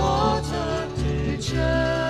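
Traditional Scottish folk song music: acoustic guitar accompaniment under held melody notes that slide from one pitch to the next.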